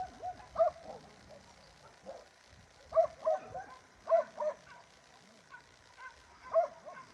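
Dogs barking, about six short barks in irregular pairs and singles.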